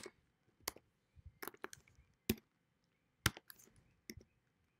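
Computer keyboard typing: about ten irregular keystrokes, the sharpest one right at the start.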